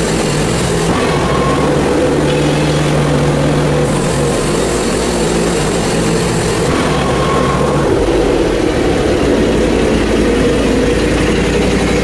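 Portable bandsaw mill running: its Predator gasoline engine holds a steady, loud drone under load while the band blade saws lengthwise through a hemlock cant.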